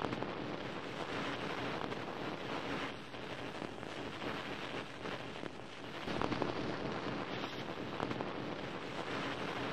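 Steady rushing, static-like noise with a low rumble: the sound effect of a glitch-style animated logo card.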